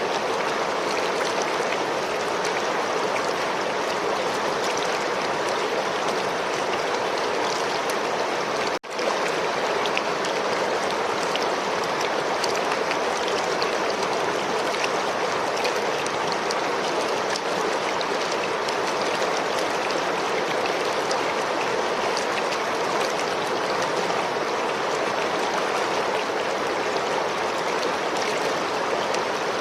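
River water flowing steadily over rocks, a constant rushing with faint splashy ticks. The sound drops out briefly about nine seconds in, then resumes unchanged.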